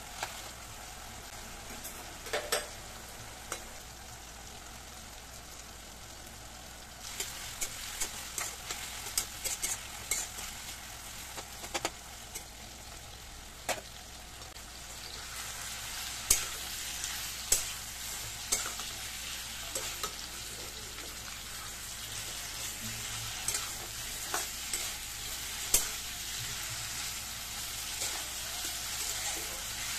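Potato cubes and tomato frying in oil in a pan, sizzling steadily, with a spatula knocking and scraping against the pan as it stirs. The sizzling gets louder about halfway through, once fried pointed gourds (potol) are added to the pan.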